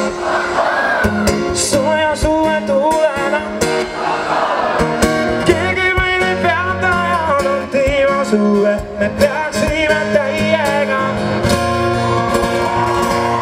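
Live pop performance: a male lead vocalist sings into a microphone over acoustic guitar and a steady band backing with a regular beat, heard through the PA.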